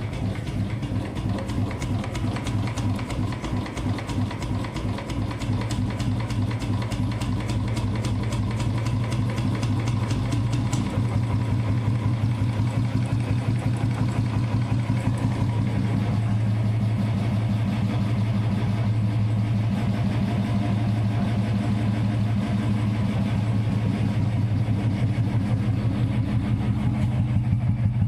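Royal Enfield Bullet Standard 350's single-cylinder four-stroke engine idling, its exhaust giving a steady, even thump through an aftermarket Indori free-flow silencer and bend pipe. The beat shifts slightly about eleven seconds in, and the engine grows a little louder toward the end.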